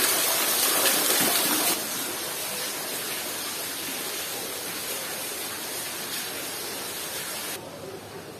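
Water falling in many thin streams like rain onto mossy rocks and a pool, a steady rushing splash. It drops in level a little under two seconds in and again near the end.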